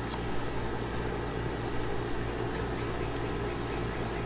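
A steady low mechanical hum. Over it come a few faint clicks and rustles, near the start and around the middle, as the cable is taken out of its pouch.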